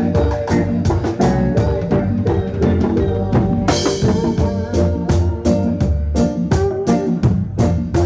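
Live reggae band playing: drum kit, electric bass, guitar and keyboard in a steady beat, with a cymbal crash a little before halfway through.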